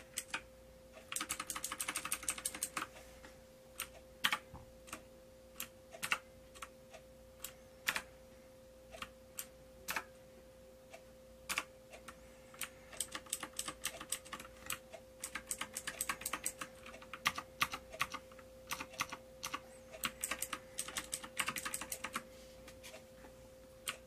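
Keys of a XENICS M9 Spectrum mechanical keyboard clicking: scattered single keystrokes with three runs of fast typing, one about a second in, one around the middle and one near the end.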